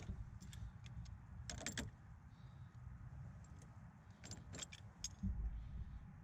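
Light metallic clinking and rattling of hand tools and fittings being handled, in two short clusters about a second and a half and four and a half seconds in, with scattered clicks over a low steady rumble.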